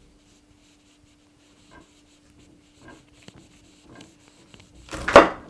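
Large kitchen knife cutting through a hard-set slab of almond chocolate on a wooden board: a few faint scrapes and knocks, then one loud crunch near the end.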